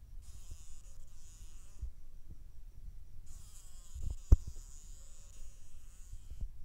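House fly caught by a spider, buzzing its wings in two bursts, the first about a second and a half long, the second about three seconds: the trapped fly struggling. A single sharp knock comes about four seconds in.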